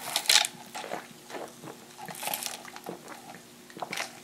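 Drinking through a straw from a paper fast-food cup: a few short sips and swallows.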